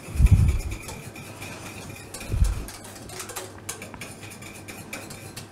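Two dull low thumps about two seconds apart as a saucepan of polenta is handled and stirred on a gas range. Under them runs a steady kitchen hum with a faint high whine.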